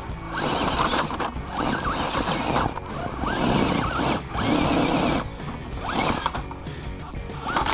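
Axial Bronco RC rock crawler's electric motor and gear train whining in a series of short throttle bursts, the pitch rising and falling with each burst as it climbs over rock.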